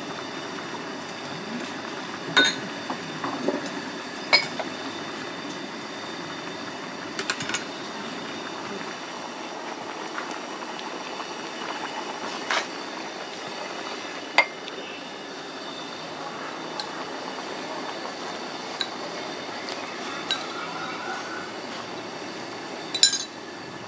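Fish soup at a rolling boil in a shallow pan on a gas stove, a steady bubbling hiss. A handful of sharp metal clinks from spoons against bowls and the pan break through it.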